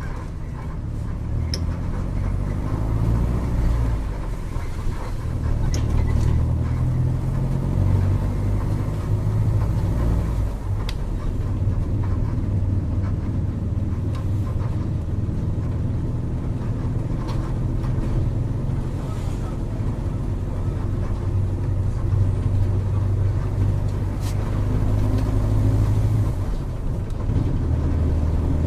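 Diesel engine of a Volkswagen 17.230 OD bus running under way, its engine speed rising and falling in steps as it accelerates and changes gear, with a few faint clicks and rattles.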